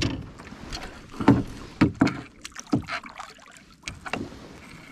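A hooked catfish thrashing and splashing at the surface beside a small boat as it is brought alongside, with irregular splashes and knocks.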